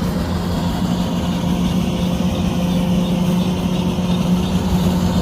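Kubota DC-105X combine harvester running steadily, an even engine drone with a constant hum.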